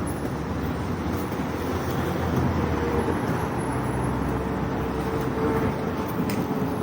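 A car going by: steady engine and road noise that swells slightly through the middle, with a faint engine hum in the second half.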